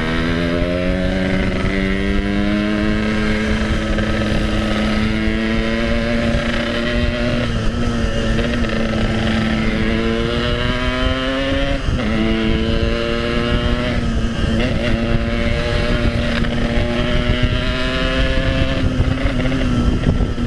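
Yamaha RX-King two-stroke single-cylinder motorcycle engine running on the move. Its note climbs slowly as it pulls and drops sharply twice around the middle, with steady wind rush on the microphone.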